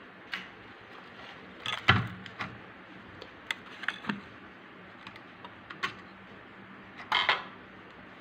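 Scattered clicks and light metallic clatter from a small homemade toy tractor model being handled and set down on a cloth, with the sharpest knock about two seconds in and a short burst of clatter near the end.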